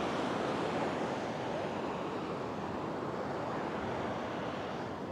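Ocean surf breaking and washing up a sandy beach, a steady rushing wash of waves.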